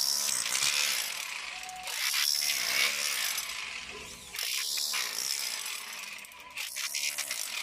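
A hand tool scraping or rasping in repeated strokes, about one a second, as work is done at the foot of a PVC electrical conduit.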